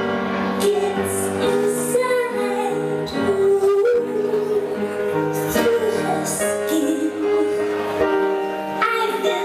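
A song with a woman's voice singing over instrumental backing, steady and loud throughout.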